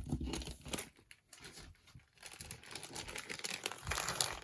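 Crinkly packaging handled and unwrapped by hand: a sharp knock at the start, then irregular crinkling that grows denser and louder from about halfway through.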